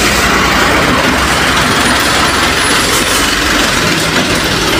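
Heavily loaded flatbed cargo truck driving past close by: loud, steady engine rumble mixed with road and tyre noise.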